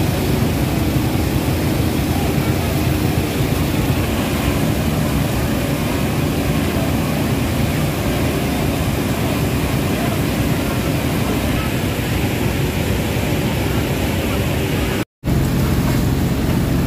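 Fire-truck pump engines running steadily under the hiss of hose water jets, a loud continuous drone. It drops out for a moment near the end.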